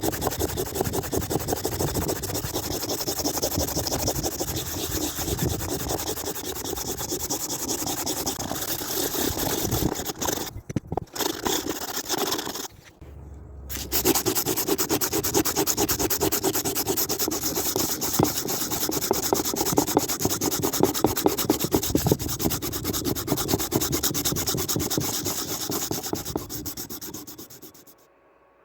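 Quick, continuous back-and-forth abrasive rubbing on an antique carpenter's hatchet being restored. It breaks off briefly twice about halfway through and stops shortly before the end.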